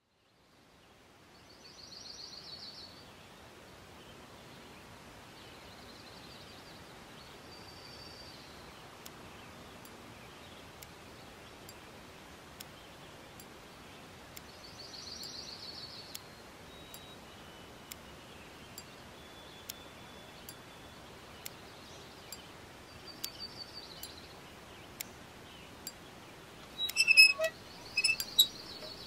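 Outdoor ambience: a steady background hiss with birds chirping in short trills every few seconds. Sharp clicks begin about a third of the way in and get louder and busier near the end.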